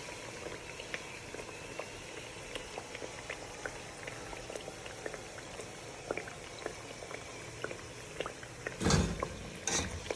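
Banana and cassava-flour pancakes frying in hot oil: a steady bubbling with many small pops. About nine seconds in, a utensil clatters and scrapes in the pan several times.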